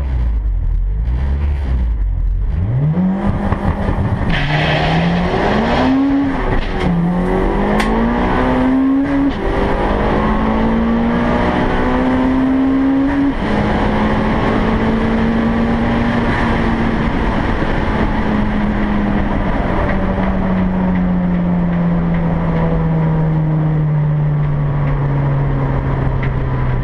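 Turbocharged Honda Civic EG6 SiR on a quarter-mile drag run, heard from inside the cabin. The engine sits low, launches about two and a half seconds in, and climbs through the gears: four rising pulls, each cut off by a quick drop in pitch at an upshift, around 4, 6, 9 and 13 seconds in. It then holds steady and winds slowly down as the car slows after the run.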